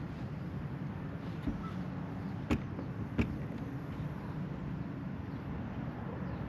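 Steady low wind-and-water noise around an open boat, with two sharp knocks less than a second apart about halfway through.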